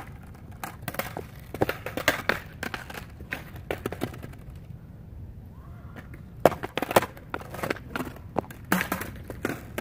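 Skateboard clacking and knocking on a concrete sidewalk as the tail is stepped on and the board is popped, tipped and dropped back onto its wheels: a run of sharp, irregular knocks, the loudest about six and a half seconds in.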